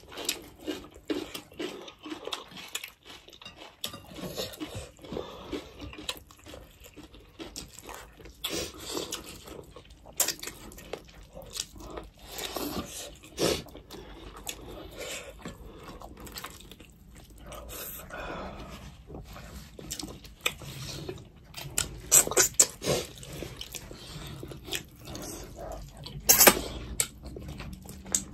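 Close-up eating sounds of two people eating a meal of rice, fish and raw red pepper by hand: irregular wet chewing and crunching, with a few louder crunches near the end.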